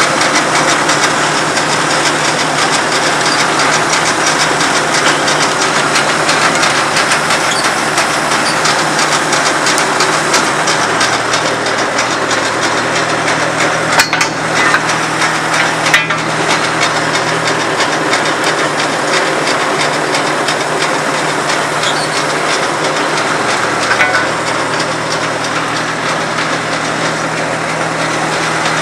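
Cabletool 22W cable-tool drill rig running, a loud steady engine and machinery clatter. Two sharp metallic knocks come about two seconds apart midway, as a control lever on the rig is worked.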